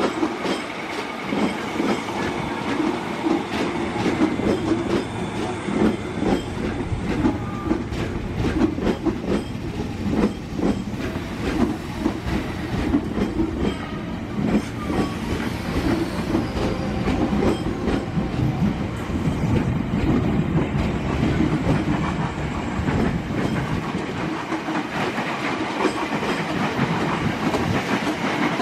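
JR 205 series electric commuter train passing close by: a steady running rumble with a rapid, continuous run of clicks from its wheels over the rail joints.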